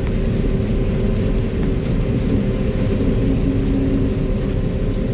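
Tractor engine running steadily, a constant low drone with a held hum over it.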